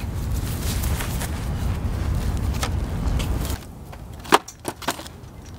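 A steady low outdoor rumble that drops away about three and a half seconds in, then one sharp smack followed by three lighter hits: thrown eggs striking.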